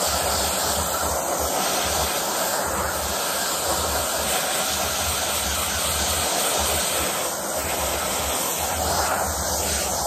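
Canister vacuum cleaner running with a steady hiss of rushing air, its crevice nozzle sucking at a doll head's long hair.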